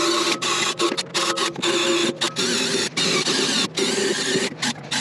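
Cordless drill spinning a wire cup brush against old copper refrigerant tubing, cleaning it for brazing. It runs with a steady whir and a motor whine, cut by many brief dropouts as the brush skips or the trigger is let off.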